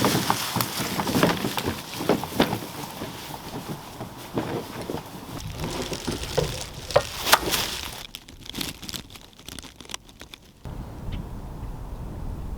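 Dry leaves and twigs crunching and rustling irregularly as a kayak is dragged over the ground. About ten seconds in, this gives way abruptly to a steady low wind rumble on the microphone.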